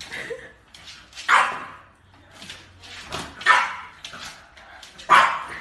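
French bulldog puppy barking three times, about two seconds apart, while it tugs at a mop, with smaller scuffling noises in between.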